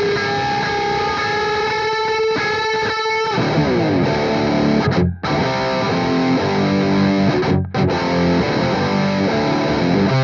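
Distorted electric guitar, a Les Paul through a Mesa/Boogie Dual Rectifier 100-watt head and 4x12 cabinet, playing a heavy drop-D style riff. Held ringing notes give way about three seconds in to a low, chugging riff that stops short twice.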